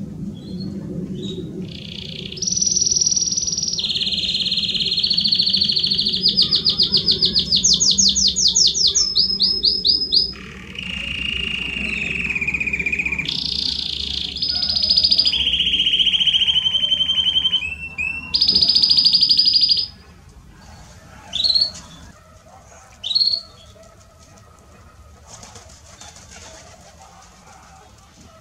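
Belgian canary singing a long, loud song of trills and rolls. Each phrase is held a second or two, and the phrases switch between high and lower pitches. The song ends about 20 seconds in, followed by a few short rising chirps.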